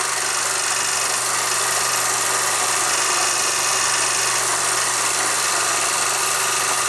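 Steady hiss with a low, even hum beneath it and no other events: the running noise of an old film projector and its worn soundtrack.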